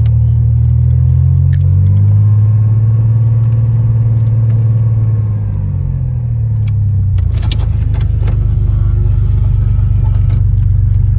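Chevy truck engine pulling under throttle, rising in pitch about two seconds in and settling back down around six seconds, then running steady. A few light rattles and jingles come through around seven to eight seconds in.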